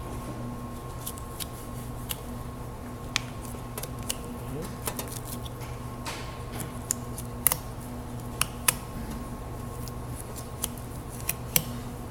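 Boning knife cutting through a lamb carcass, the blade making irregular sharp clicks and scrapes as it runs along the bone.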